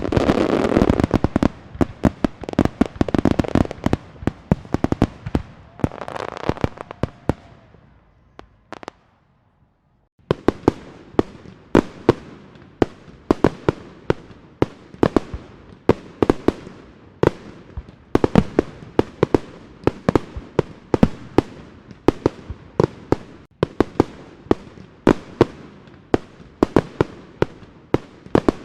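Aerial fireworks display. A dense volley of bangs and crackle over a rolling rumble dies away, then after a short break comes a steady run of sharp bursts, about two a second.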